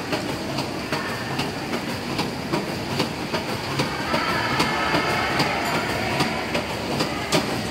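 Modular plastic belt conveyors running: a steady clattering rattle with regular sharp clicks, about two or three a second. A faint higher whine joins about halfway through.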